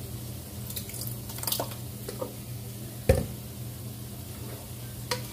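Thick pasta sauce squelching and dripping out of an upturned glass jar into a pot of noodles. There are a few light clicks, one sharp knock about three seconds in and a small click near the end, over a low steady hum.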